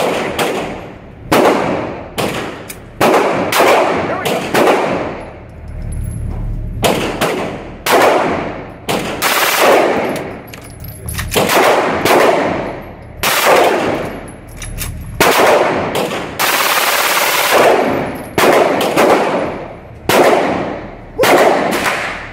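Pistol gunfire with shots about once or twice a second, each followed by a ringing tail. About two-thirds of the way through comes one continuous burst of rapid fire lasting about a second, typical of a full-auto Glock emptying its magazine.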